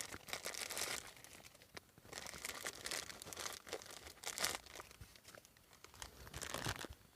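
Crinkling, rustling noise in four separate bursts, the longest about a second and a half, the shortest under half a second.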